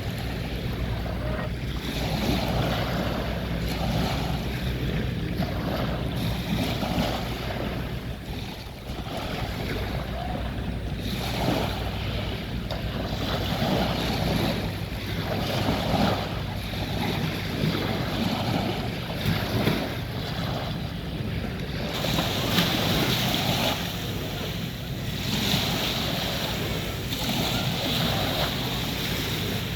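Waves washing on a beach, with wind rumbling on the microphone. The hiss of the surf turns brighter about two-thirds of the way through.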